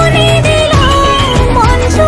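Background music: a Bengali Durga Puja song, its melody line gliding over a steady beat.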